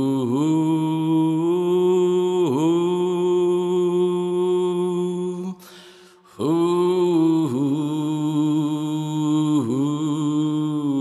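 A person's voice toning long, sustained notes in a chant-like way, with small dips in pitch between held tones. It breaks off for a short breath about six seconds in, then resumes.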